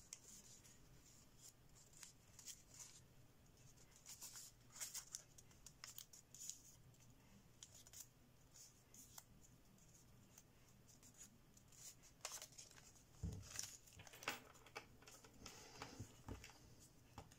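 Faint rustling and crinkling of thin 53 g/m² kami origami paper being folded and creased by hand, in scattered small crackles. A few soft thumps come near the end as the model is pressed down on the table.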